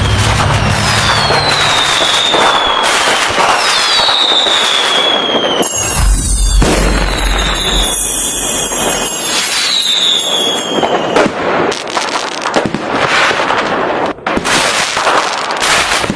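A fireworks barrage: dense crackling and popping bursts, with several whistling shells gliding down in pitch and a deep rumbling boom from about six seconds in.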